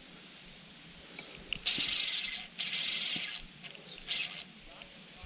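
Spinning fishing reel buzzing in three bursts, the first two nearly back to back and a shorter one near the end, as line is worked while a fish is on.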